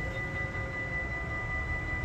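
Steady high-pitched whine with a fainter lower tone, over a low rumble, from a locomotive at a station.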